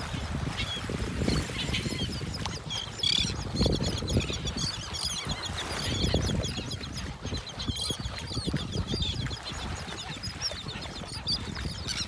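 A large resting flock of gulls and terns calling: many short, high calls overlapping in a steady chatter, over a low, uneven rumble.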